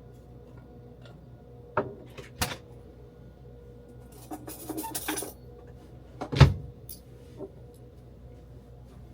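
A few sharp knocks and a short rattling clatter, like objects being handled in a small space, over a steady low hum; the loudest knock comes about six seconds in.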